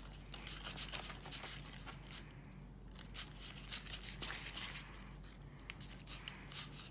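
Wooden stick stirring glittery glue slime in a plastic bowl just after activator was added, as it thickens into slime: faint, irregular sticky scraping with scattered small clicks against the bowl.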